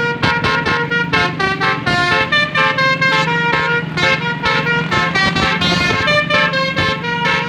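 Medium bus's basuri telolet horn set, with roof-mounted trumpets, playing a loud melody of short stepped notes that change pitch every fraction of a second over a steady low drone.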